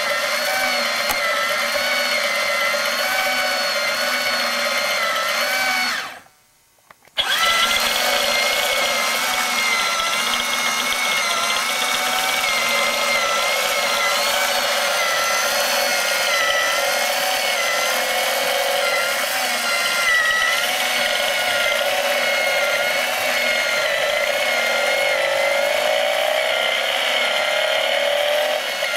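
Small electric motor driving the plastic gear train, crankshaft and pistons of a clear BMW R90S model engine kit: a steady high whir whose pitch wavers slightly and regularly. The sound cuts out for about a second some six seconds in, then resumes.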